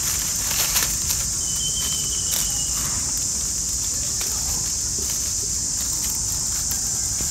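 Steady, high-pitched chorus of insects buzzing without a break. A few sharp crackles sound in the first second, and a brief thin whistle comes about two seconds in.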